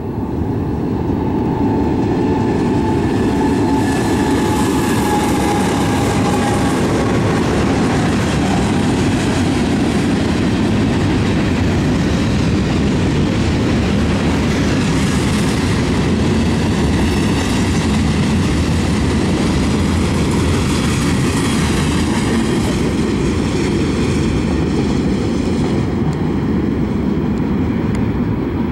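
Union Pacific freight train passing close by: two diesel locomotives go by, then a long string of gondola cars rolls past with a steady loud rumble and clickety-clack of wheels on the rails. A faint falling whine sounds a few seconds in as the locomotives pass.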